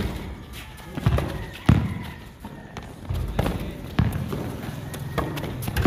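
A few sharp, irregularly spaced thuds over a low rumbling background.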